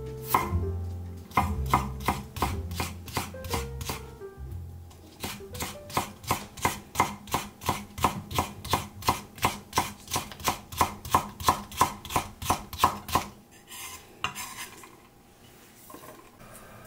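Kitchen knife julienning carrot slices on a thick wooden cutting board: quick, even knife-on-board taps about four a second, which stop near the end.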